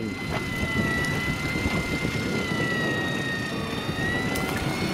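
Miya Epoch electric deep-drop reel winding in line under the load of a hooked bar cod: a steady high motor whine that wavers slightly in pitch, over a constant low rumble.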